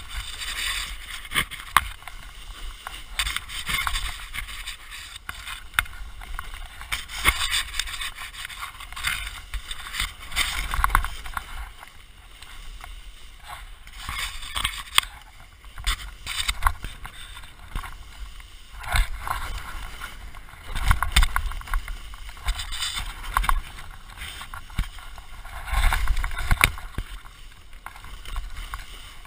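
Skis scraping and hissing over snow in repeated turns down a steep slope, surging with each turn every second or two, with wind rumbling on the microphone.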